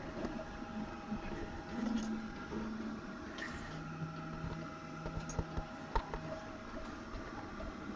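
Faint scattered clicks and knocks from a 3D-printed plastic sphere frame being turned with the camera riding inside it, over a low steady hum. A brief low tone sounds in the middle.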